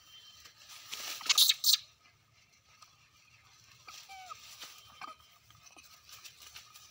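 Crunching, rustling noise, loudest about a second in, followed by a few soft clicks and a brief falling squeak.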